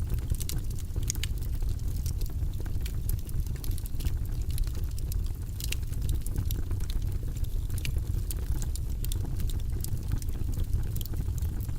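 Burning logs crackling, with frequent sharp pops and snaps over a steady low rumble of the fire.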